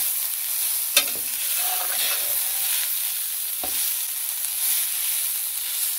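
Rice and vermicelli sizzling as they brown in hot beef shortening in a stainless steel pan, stirred with a spatula that scrapes through the grains and knocks sharply against the pan about a second in and again just before four seconds.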